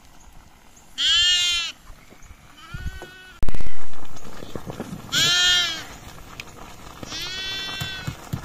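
Sheep bleating four times, each call under a second long, two of them loud and two fainter. A single loud, low thump sounds between the second and third bleat.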